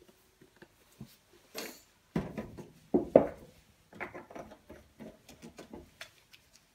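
Handling noises on a kitchen countertop: two knocks as the plastic fuel-gel bottle is set down about two and three seconds in, then a run of small light clicks and rustles as a cardboard matchbox is picked up.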